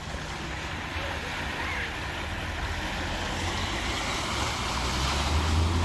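A vehicle driving through deep floodwater at a ford: a low engine rumble under the rushing wash of water, both growing louder near the end.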